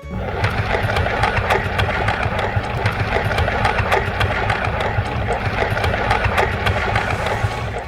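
An engine running steadily with a rapid clatter, starting abruptly and cutting off at the end.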